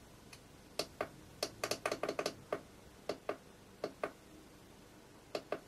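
Push buttons on a Boscam FR632 5.8 GHz diversity FPV receiver clicking as they are pressed over and over, mostly in quick pairs with a fast run of clicks about two seconds in, stepping the receiver from channel to channel.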